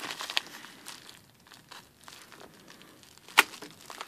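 Padded paper bubble mailers crinkling and rustling as they are handled, with one sharp click about three and a half seconds in.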